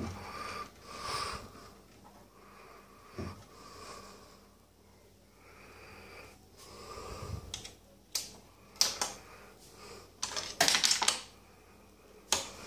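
Soft, breathy, repeating noises, then from about two-thirds of the way in a run of sharp mechanical clicks and rattles from the 1930s Buckley Jewel Box crane machine's mechanism as it is worked.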